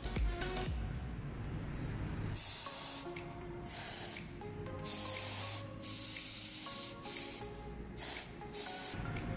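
Sprayer misting thinned green food colouring onto gumpaste cala lily petals in several short hissing bursts, each under a second, starting about two and a half seconds in. Soft background music underneath.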